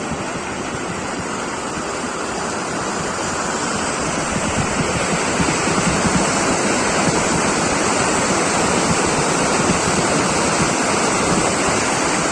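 Waterfall rushing, a steady roar of falling water that grows a little louder about four seconds in.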